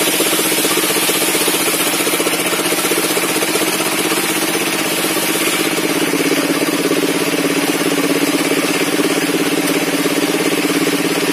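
Engine powering a sawmill's table circular saw, running steadily at a constant pitch.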